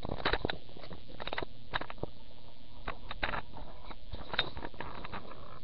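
Handling noise close to the microphone: irregular clicks, taps and rustles as things are moved about against the camera, over a steady low hum.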